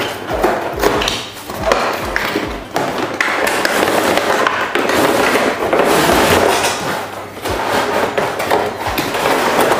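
A cardboard box with a clear plastic window being opened and handled: continuous rustling and crinkling of cardboard and plastic, with a few sharp knocks.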